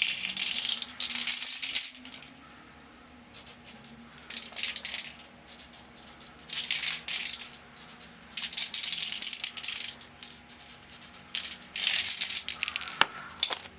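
Aerosol can of spray paint shaken in repeated short bursts, its mixing ball rattling rapidly, between passes of spray paint.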